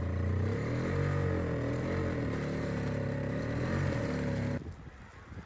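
Small gasoline snowblower engine running, its pitch wavering up and down as it works. The sound cuts off abruptly near the end, leaving quieter irregular scrapes.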